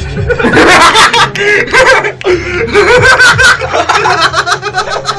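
Loud laughter and snickering close to the microphone, in quick short bursts.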